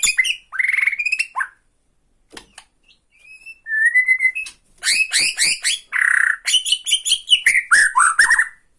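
Bornean white-rumped shama (murai batu) singing, with rapid chattering 'ketrekan' notes. A burst of song is followed by a gap of about two seconds, then a held whistle, then a dense run of fast sweeping notes from about five seconds in.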